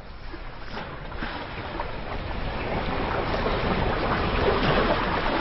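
Sea surf washing on shoreline rocks: a steady rushing noise that grows gradually louder.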